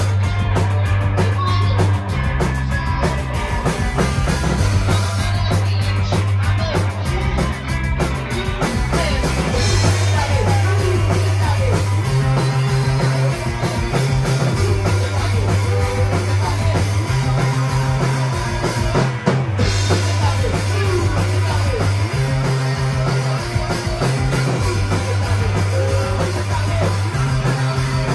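Live rock band playing loudly: distorted electric guitar, a bass line of held low notes that steps between pitches, and a drum kit hit hard and steadily.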